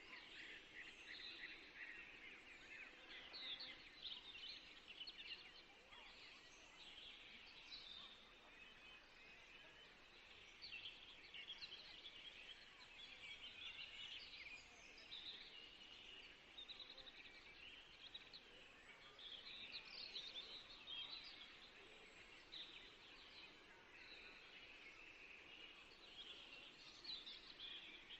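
Many small birds chirping faintly and continuously, in quick clusters of short high chirps, over a low background hiss.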